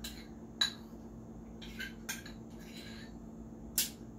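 Spoon clinking and scraping inside a jar of amarena cherries in syrup as they are scooped out into a pot: a few sharp clinks with short scrapes between, the loudest clink near the end.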